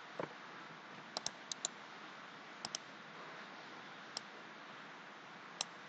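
Computer mouse clicking about nine times, several clicks in quick pairs like double-clicks, over a faint steady hiss.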